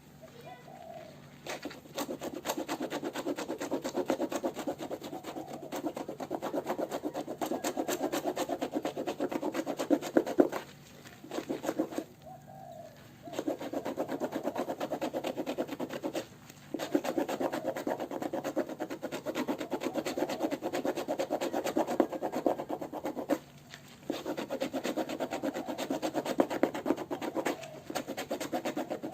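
Fast back-and-forth rubbing or scraping strokes on jersey fabric, in bouts of several seconds with short pauses between them, as part of working off an old printed nameset.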